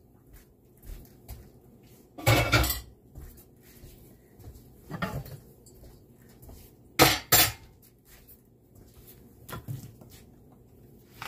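Kitchenware clattering: several separate knocks and clinks of pots and dishes being handled and set down, the loudest a quick pair about seven seconds in.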